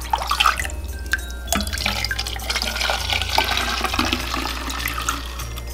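Water sloshing and splashing in a large glass measuring jug as a small glass cup is dipped in and water is scooped and poured back, with a few glass clinks near the start.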